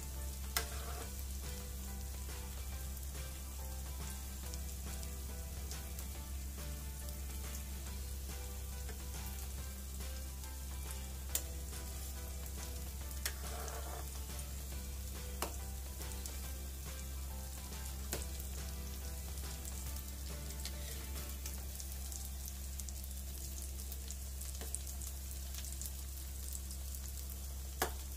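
Samosas deep-frying in gently heated oil, a steady soft sizzle, the low heat that lets them cook through and turn crisp. A few sharp clicks break in now and then.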